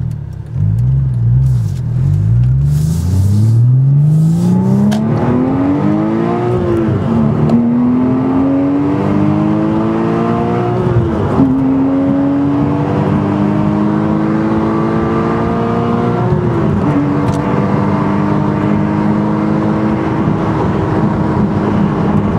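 Porsche Cayman S engine and custom exhaust under hard, full-throttle acceleration. The revs climb steeply through the gears, with three upshifts about 7, 11 and 17 seconds in, each shift a sudden drop in pitch before the note climbs again.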